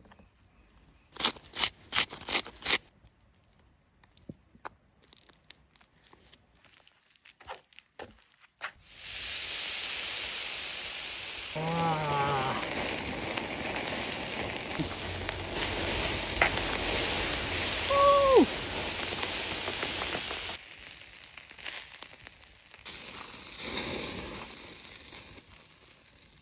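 Fatty offal (horumon) sizzling on a wire grill over a charcoal fire, fat dripping into the coals. The loud steady sizzle starts suddenly about nine seconds in, drops back after about twenty seconds and fades near the end; a few sharp clicks come before it, and a short falling squeak sounds about eighteen seconds in.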